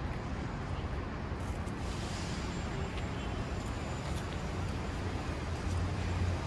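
Steady outdoor city ambience: a low rumble of distant traffic under an even hiss, with a few faint ticks.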